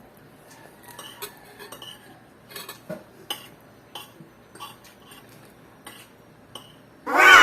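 Cutlery tapping and scraping on a plate in light, scattered clicks during a meal. Near the end a short, loud high-pitched cry cuts in briefly.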